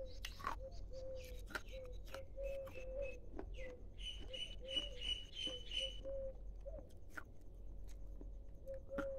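Birds calling: a short low note repeated many times, with higher chirps over it for the first several seconds. Scattered soft clicks sound throughout.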